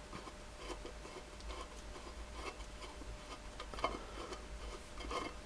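Faint scratching and light metallic clicks of a screwdriver turning out a small screw in a metal gearbox casing, with a slightly louder cluster of clicks about four seconds in.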